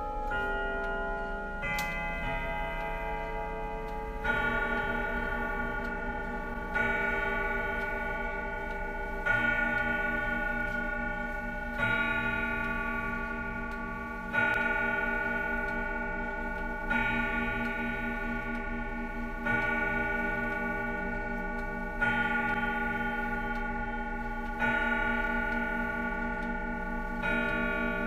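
Hermle 01165 mechanical grandfather clock finishing a chime melody, then striking the hour: a slow series of deep, ringing strikes about every two and a half seconds, each left to die away, over the clock's ticking.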